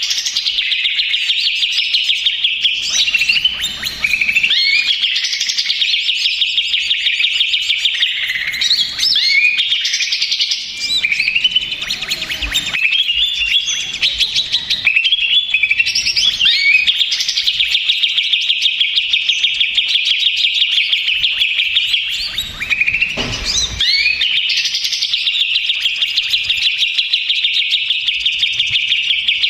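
Cucak ijo (green leafbird) singing a loud, nearly unbroken song of rapid trills mixed with varied whistled and chattering phrases. This is the noisy ('ribut'), agitated song used as a lure ('pancingan') to set other cucak ijo singing.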